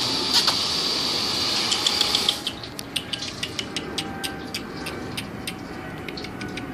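A steady hiss for about the first two seconds, then a run of quick, irregular clicks: a pet squirrel's claws skittering across the floor as it scampers about.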